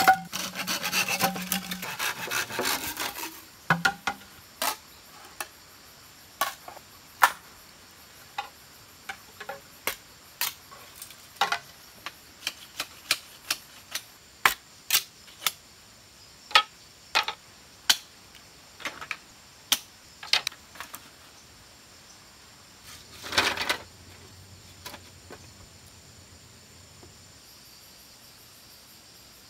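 A hand saw rasping through a green bamboo pole for the first three seconds, then a long run of irregular sharp wooden knocks and clacks as cut bamboo pieces are worked and set down. A short scraping burst comes about 23 s in, and after it only faint insects chirring.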